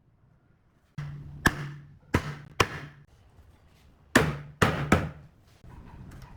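Sharp knocks, as of blows struck on wood: four in quick succession, a pause of about a second and a half, then three more.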